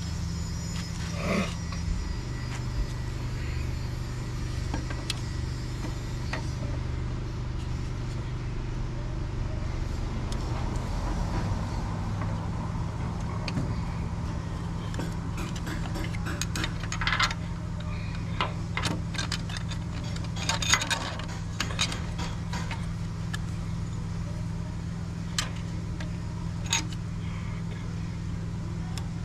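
Scattered metallic clinks and light taps of bolts, spacers and hand tools while an alternator is fitted with its mounting hardware, thickest in the second half, over a steady low hum.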